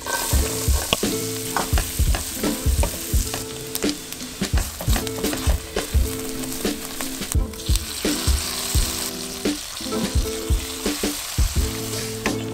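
Food sizzling as it fries in a stainless steel pan: butter bubbling, then onions and tomato paste frying while a wooden spatula stirs them. Background music with a steady beat plays underneath.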